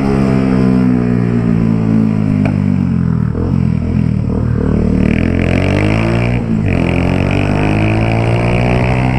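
Single-cylinder Honda Titan 150 motorcycle running through a loud Pro Tork 'Ronco Forte' aftermarket exhaust while riding. The engine note falls over the first few seconds, then climbs as it accelerates. There is a short break about six and a half seconds in, and then the note rises again.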